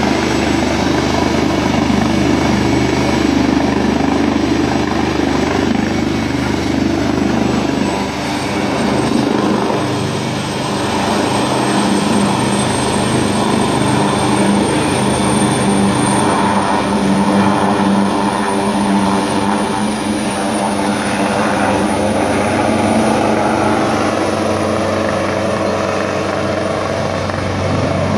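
Turbine helicopter running on the ground and taking off: loud, steady rotor and engine noise with a high turbine whine that rises in pitch about halfway through as it powers up for lift-off.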